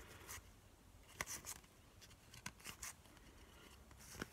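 Faint, soft flicks and rubs of baseball trading cards being thumbed through a hand-held stack, a few irregular card-on-card slides.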